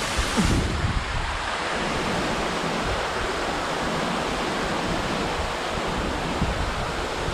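Waterfall water rushing in a steady, even roar, with a few low buffets of wind on the microphone about a second in.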